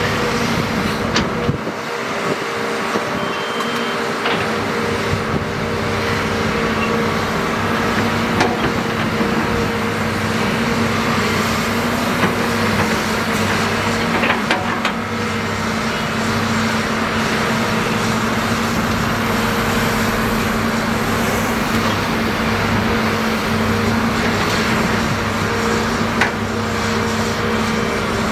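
Volvo crawler excavator's diesel engine and hydraulics running steadily under load while it digs soil and loads a dump truck, with a steady hum. A few sharp metallic clanks from the bucket and boom stand out over it.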